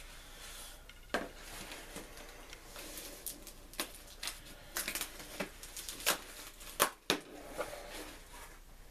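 A cardboard mailer being cut open along its packing tape with a small blade, then the cardboard flap pried up: irregular sharp crackles, scrapes and rustles of cardboard and tape.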